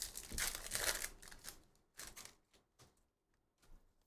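Topps Chrome F1 trading cards being handled and flipped through: a quick run of sliding, flicking card sounds for the first second and a half, then a few separate light clicks.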